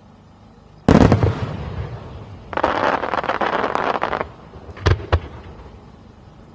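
Aerial fireworks shells bursting: one loud boom about a second in that fades away, then a dense crackle of many small pops lasting under two seconds, then two sharp bangs in quick succession near the end.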